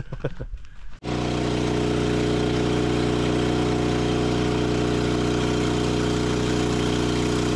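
Engine of a bandsaw sawmill running at a steady speed, starting abruptly about a second in and holding an even, unchanging drone.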